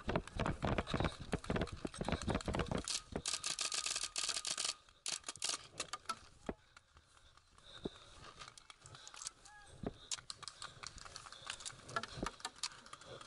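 Running footsteps on grass jolting a head-mounted camera, then a loud rustling rush as the runner drops into cover, followed by quieter shuffling with scattered faint clicks.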